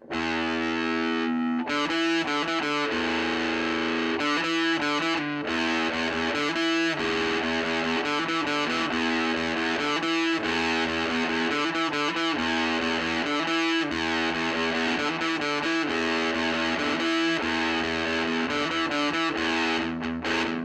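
Electric guitar played through the overdrive channel of an Ever Play RG60 solid-state combo amp, heavily distorted. A chord rings out suddenly, then the riff goes on with chords cut short and struck again.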